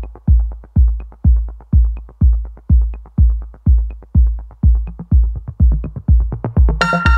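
Electronic background music: a steady deep kick drum about twice a second with light ticks between, joined near the end by a bright synth chord.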